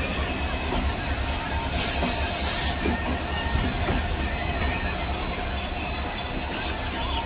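Passenger train hauled by a WDG-4D diesel-electric locomotive (EMD GT46MAC, 16-cylinder EMD 710 engine) rolling slowly past: a steady low rumble with a thin, steady high-pitched wheel squeal over it. About two seconds in, a burst of hiss lasts about a second.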